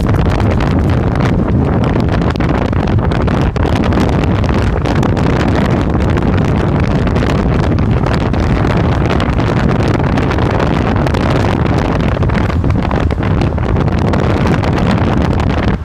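Union Pacific mixed freight train passing close by without sounding its horn: a loud, steady rumble of locomotives and rolling cars, with wind buffeting the microphone.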